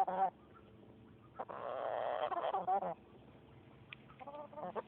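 Chicken calling and clucking: a short call, then a long call of about a second and a half, then a quick run of short clucks. Several short sharp snicks between the calls are typical of a sneezing chicken.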